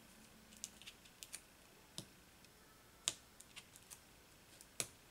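Faint, scattered ticks and clicks of fingernails picking the paper backings off foam adhesive dimensionals stuck to a cardstock panel. The sharpest clicks come about two seconds in, three seconds in and near the end.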